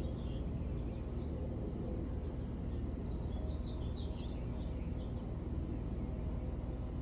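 Faint, short, high-pitched bird chirps, a few at the start and a quicker cluster about three to four and a half seconds in, over a steady low rumble.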